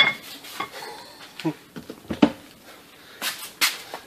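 Steel parts of a differential carrier and hand tools being handled in a shop press: a sharp, ringing metallic clink at the start, then scattered short knocks and clunks, with two stronger ones near the end.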